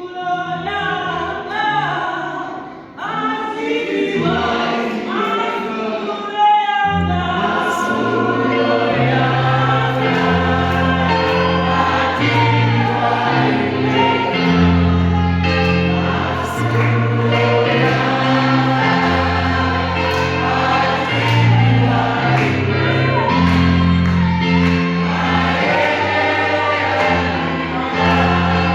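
A choir singing a gospel song. About seven seconds in, a bass line and percussion come in under the voices and continue as a steady backing.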